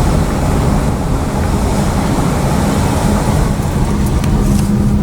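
A car being driven: steady road and engine noise with a low drone.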